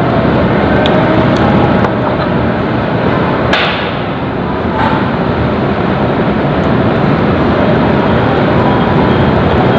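Steady loud rushing noise, with a few light clicks and one sharper knock about three and a half seconds in.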